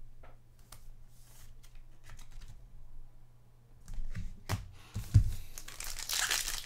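Trading cards and pack wrapper being handled: sparse soft clicks and rustles of cards being flipped, then a sharp click, a low thump about five seconds in, and louder crinkling and tearing of a pack wrapper near the end.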